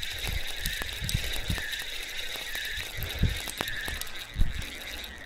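Spinning reel being cranked steadily as a fish is reeled in, its gears whirring and ticking with each turn of the handle. A few low thumps come through, the loudest near the end.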